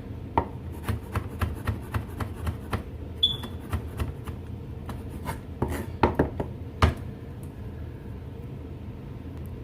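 Kitchen knife chopping on a cutting board in quick, even strokes, about three or four a second. A few harder strokes come near the middle, then it thins out.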